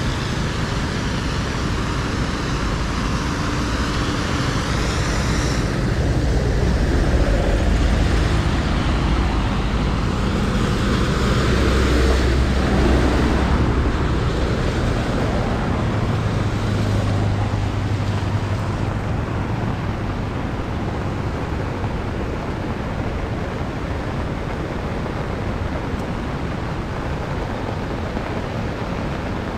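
Road traffic going by over a steady wash of noise, with engines swelling and fading as vehicles pass, loudest around the middle.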